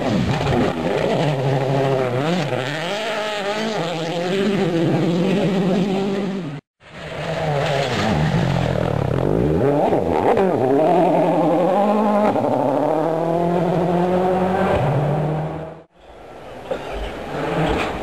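Rally cars driven hard on gravel stages, their engines revving up and down as they change gear. The sound breaks off sharply about six and a half seconds in and again near the end, where separate passes are cut together. The first pass is through a water splash.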